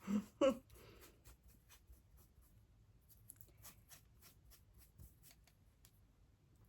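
A makeup brush rubbed in quick, short strokes, a faint scratchy swishing a few times a second, as a brush is cleaned of dark eyeshadow. Two brief vocal sounds open it and are the loudest thing heard.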